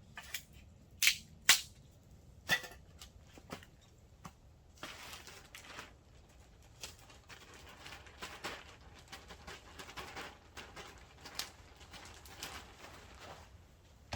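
Plastic greenhouse film crinkling and rustling as it is handled and patched with tape over a tear, with a few sharp clicks in the first few seconds.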